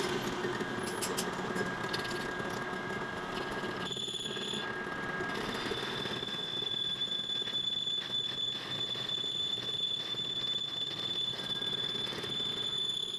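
Metalworking machinery running, with a steady high-pitched whine that sets in about four seconds in and breaks off briefly, over clattering mechanical noise.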